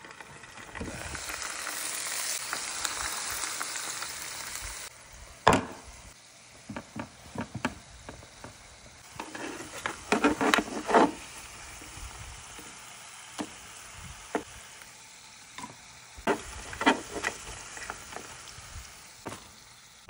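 French fries frying in hot oil in an electric grill's pan. A loud sizzle runs from about one to five seconds in, then settles to a quieter steady frying, broken by clicks and clacks of metal tongs turning the fries.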